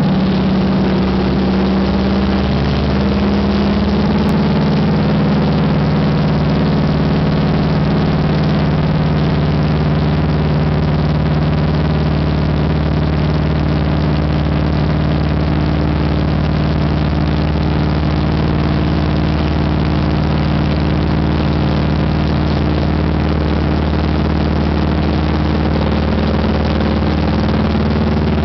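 Floatplane's piston engine and propeller running steadily while the plane moves on the water, heard from on board, with a slight shift in pitch early on and again near the end.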